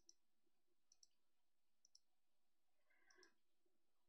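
Faint computer mouse clicks, four of them about a second apart, each a quick press-and-release pair of ticks, over near silence.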